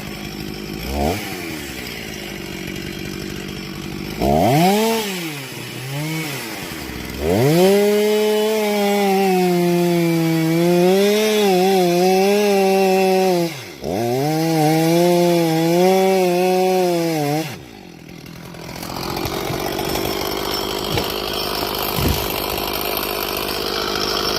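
Two-stroke Husqvarna chainsaw blipped and revved up and down, then held at full throttle through two long cuts, its pitch dipping slightly under load. Near the end the high engine note drops away, leaving a lower steady noise with a single sharp crack.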